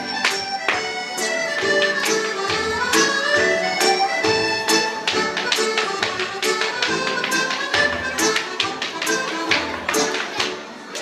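Hard-shoe Irish step dancing: rapid, sharp taps and clicks of heavy dance shoes on a stage over a traditional dance tune. The music stops just before the end.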